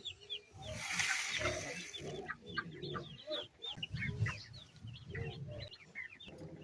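Baby broiler chicks peeping continually in short, falling chirps. About half a second in, a hiss of fine grain feed is poured into a feeding pan and lasts a couple of seconds.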